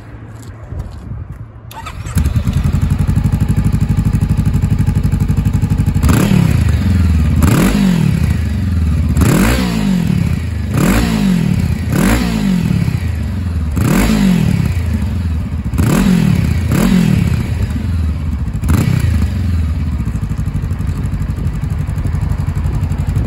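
Honda CB500X's parallel-twin engine breathing through a Black Widow aftermarket exhaust. It starts about two seconds in and idles, then gets about ten short throttle blips, each rising and falling in pitch, before settling back to a steady idle near the end.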